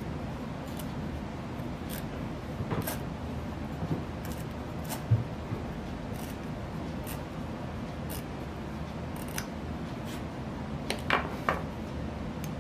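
X-Acto hobby knife trimming Gorilla tape on a plastic pipe ring: scattered small clicks and scrapes of the blade, with a low knock about five seconds in and a few louder scrapes near the end.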